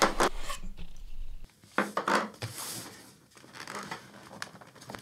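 A knife blade slits the seal tape on a cardboard box with a short scraping, crinkling sound. The box is then handled and set on the table, making rustling and a few knocks.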